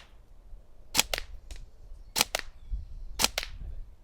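Tokyo Marui Next Gen Recoil Shock electric airsoft rifle firing single shots, three about a second apart, each a sharp crack followed quickly by a fainter second click.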